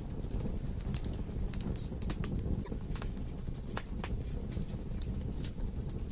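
Logs burning in a fireplace: a steady low rumble of the fire with irregular sharp crackles and pops from the wood, a few each second.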